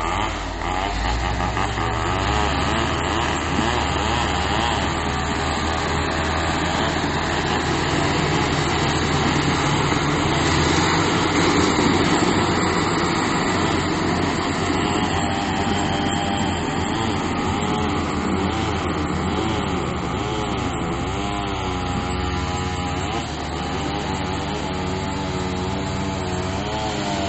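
Crawler bulldozer's diesel engine running hard while skidding logs, its pitch rising and falling as the revs change, loudest about halfway through.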